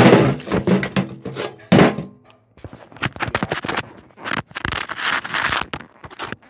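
A hammer smashing terracotta clay pots: a loud crack at the start and another hit about two seconds in, followed by a run of clattering knocks and scraping.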